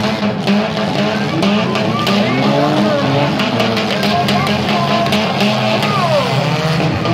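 Several small derby cars' engines revving together, their pitches rising and falling, with a few sharp knocks of cars ramming one another in the first couple of seconds.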